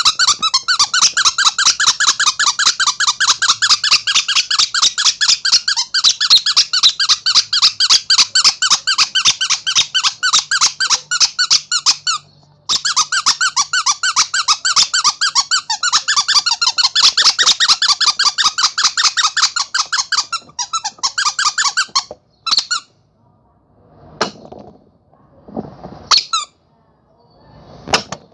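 Rubber monkey squeaky toy squeezed over and over, giving a fast, even run of high squeaks, several a second. The run breaks briefly about halfway, then stops, and a few soft, airy squeezes with little squeak follow near the end.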